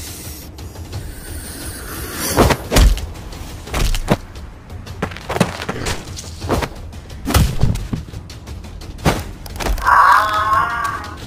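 Cartoon stomp and impact sound effects over background music: about seven heavy thuds spaced a second or so apart, then a wavering, warbling cry near the end.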